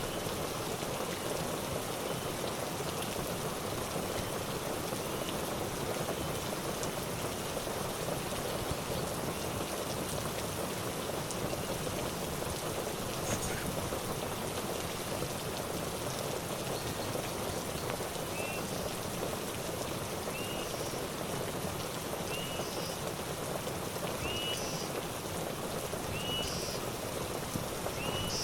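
Steady rain falling, an even hiss without pause. In the second half a short, high chirp repeats about every second and a half.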